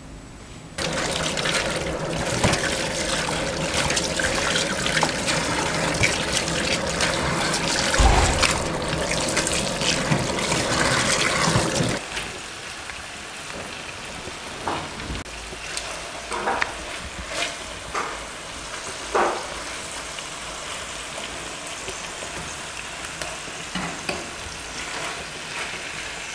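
Chunks of meat frying in their juices in a frying pan, sizzling and bubbling, loudly for the first half and more quietly after that. A fork scrapes and clicks against the pan now and then as the pieces are turned.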